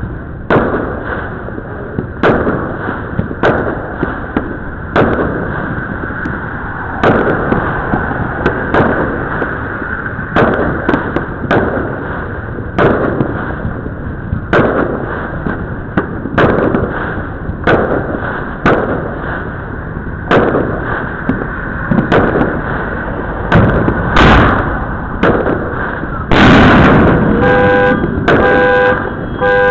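Illegal consumer fireworks going off across a neighborhood: sharp bangs every second or so over a constant background of distant pops and crackle, with a dense, louder run of bangs near the end. In the last couple of seconds a car horn honks in short toots.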